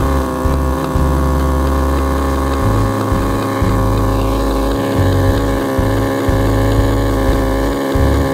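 Carbureted four-cylinder sport motorcycle engine idling steadily, with its fuel tank off and the carburetors exposed while they are being tuned.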